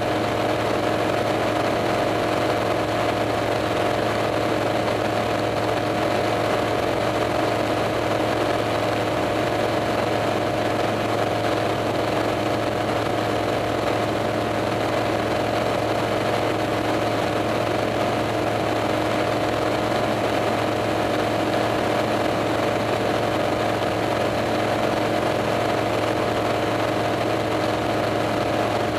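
Single-engine light airplane's engine and propeller droning steadily in cruise, heard from inside the cockpit, holding one even pitch with no change in power.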